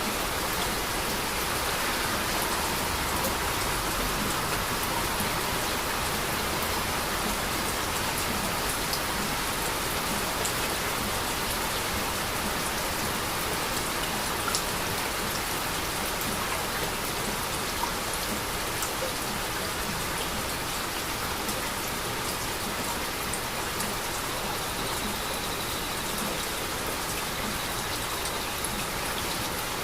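Steady heavy rain falling, an even hiss with scattered individual drops ticking on surfaces.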